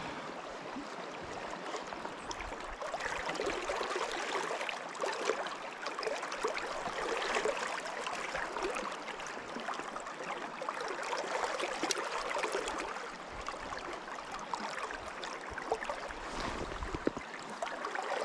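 River water rushing and babbling over rocks: a steady wash of moving water with fine splashing flicker throughout.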